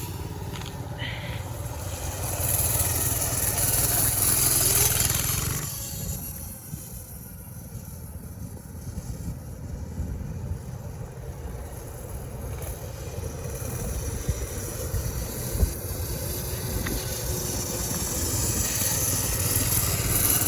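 Small engine of a home-built X1 pocket bike running during a ride, swelling louder in the first few seconds and easing off before building again. The rider says the throttle needs fixing and he can't ride fast with it like that.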